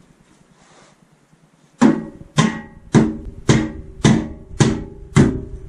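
Background music: after a quiet start, a beat of evenly spaced plucked or struck chords comes in about two seconds in, about two a second.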